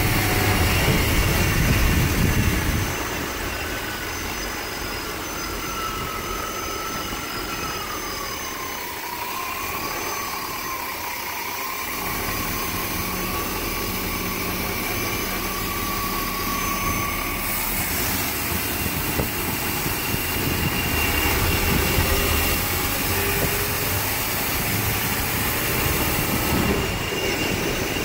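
Bus's 350 small-block Chevy V8 running under its open engine cover, louder for the first few seconds, then steadier. A thin, wavering high whistle sounds over it through the middle stretch.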